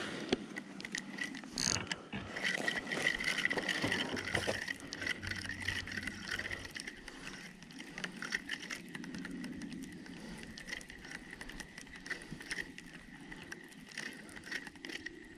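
Spinning reel being cranked, its gears giving a fast run of small clicks and a whirr as a bottom-fishing line is wound in.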